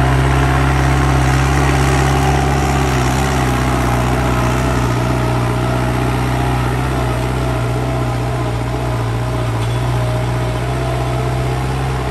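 New Holland 5630 tractor's diesel engine running steadily under load while pulling a 19-tine cultivator through the soil, with a higher whine that wavers slightly in pitch over the engine note.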